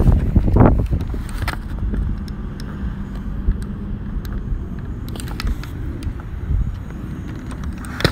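Steady low outdoor rumble like wind on the microphone, louder and gusty in the first second, with a few light clicks scattered through.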